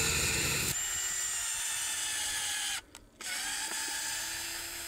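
Cordless drill running steadily, its motor whining as it works into a wooden fence post. It breaks off briefly about three seconds in, then runs again.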